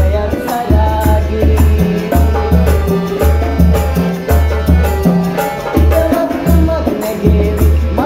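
Sinhala calypso song sung by a group of men together, backed by accordion and hand drums (bongos and conga) over a deep bass line that pulses in a steady beat.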